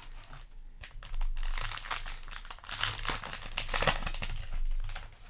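Yu-Gi-Oh! booster pack's foil wrapper being crinkled and torn open, a dense crackle from about a second in to near the end.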